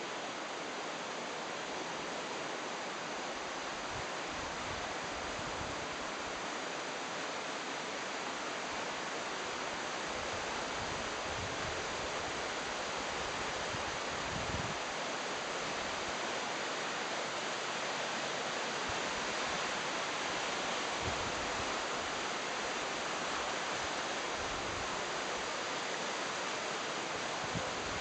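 Steady rushing of the Gave river's current flowing below the bridge, with a few brief low thumps at intervals.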